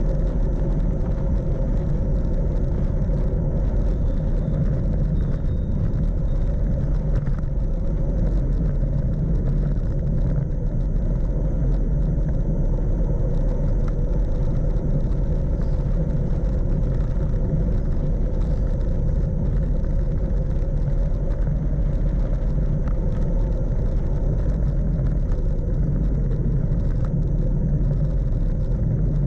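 Wind buffeting the microphone and tyres rumbling on asphalt as a Brompton folding bicycle runs downhill on a paved road: a steady low rumble with no breaks.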